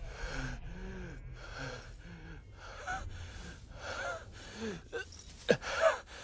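A wounded man gasping for air in quick, ragged breaths, about two a second, with strained groans between them; a sharper, louder gasp comes near the end.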